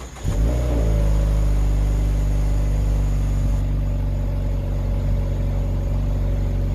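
A 2020 Mazda 3's 2.5-litre four-cylinder engine comes in suddenly just after the start and settles into a steady, deep idle, heard through its exhaust.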